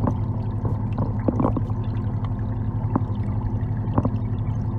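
Muffled underwater sound of a koi pond: a steady low hum with a haze of water noise, broken by a few sharp clicks.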